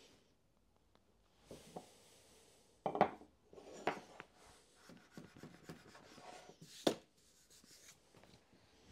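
Hand scraping and rubbing of the kit's small trimming tool over a black hot-melt knot filler set into oak, shaving the hardened excess flush with the wood. Tools knock sharply on the board about three seconds in and again near the seven-second mark.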